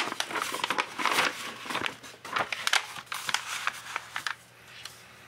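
Sketchbook paper pages rustling and crinkling as they are turned and pressed flat by hand, a quick run of crackling rustles that stops about four seconds in.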